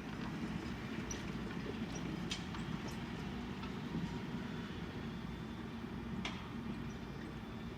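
John Deere 6215R tractor's six-cylinder diesel engine running steadily under ploughing load, a low rumble with a faint steady hum. A couple of short sharp clicks sound over it.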